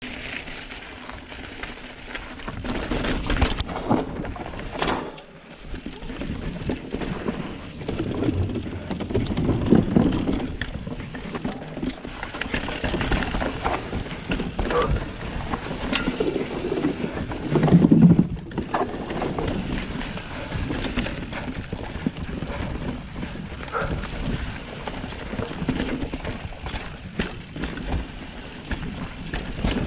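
Mountain bike descending a rough downhill trail: tyre noise on dirt and rock with irregular rattles and knocks from the bike. The noise surges louder about ten and eighteen seconds in.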